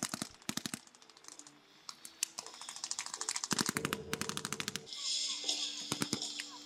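Machine gun firing rapid bursts of automatic fire: a burst that stops just under a second in, then a longer burst of about two and a half seconds in the middle.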